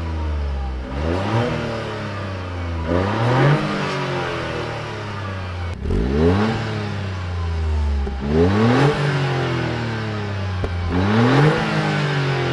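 Toyota GR Yaris's 1.6-litre turbocharged three-cylinder engine blipped at standstill, each rev rising quickly and falling back to idle. There are two revs through the stock exhaust, then, after a cut about six seconds in, three more through an HKS Legamax Premium exhaust.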